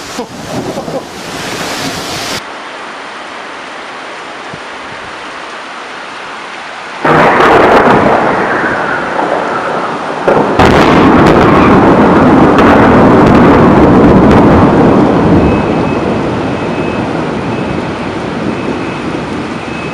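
Thunderstorm: steady heavy rain hiss, then a sudden thunderclap about seven seconds in and a second, louder one about three seconds later. The thunder rumbles on loudly for several seconds, then slowly fades back under the rain.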